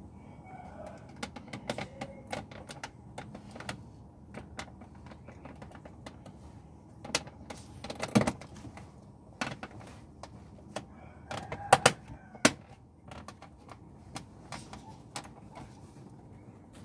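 Irregular clicks and knocks of a metal Allen key and hands working a Chevrolet's automatic gear selector and its plastic console trim; the gear lever is broken and jammed. The loudest knocks come about eight seconds in and in a quick group of three a few seconds later.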